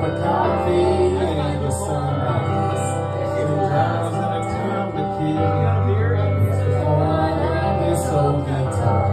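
A man and a woman singing karaoke into microphones over a backing track with a steady bass line and a regular beat.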